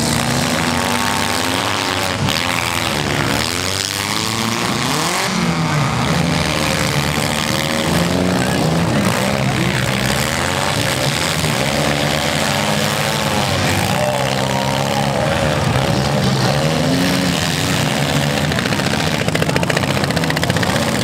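Several compact cars' engines revving hard at once, each rising and falling in pitch as the cars push and ram each other in a demolition derby.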